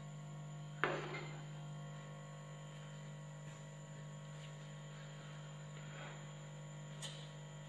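Steady electrical hum, with one sharp knock about a second in and a light click near the end.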